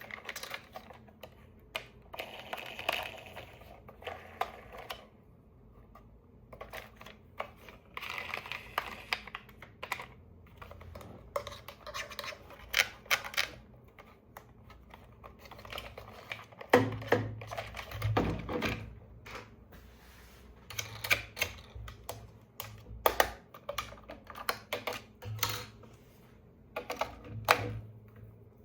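Hands handling a toy and its packaging: irregular clicks and taps with stretches of rustling, and a few dull knocks about halfway through.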